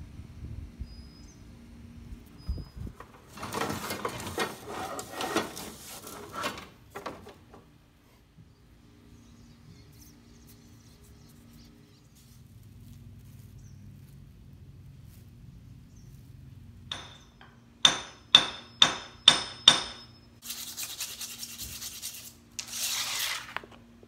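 Hard stone being worked by hand, most likely for a primitive arrowhead. First comes rubbing and scraping of rock. Then, past the middle, a quick run of sharp, ringing clinks about two a second, and after them more scraping against a rough surface.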